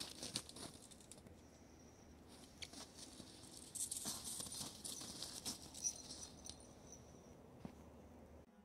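Footsteps crunching and scuffing on icy slush and packed snow, with scattered light clicks. The crunching is busiest about four to six seconds in.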